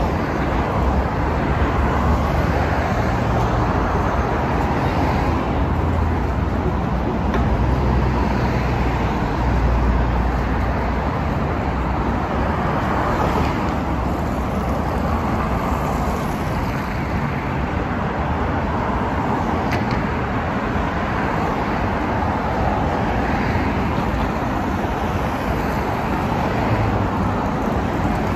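Steady traffic noise from cars driving along a busy multi-lane city avenue, with a continuous low rumble.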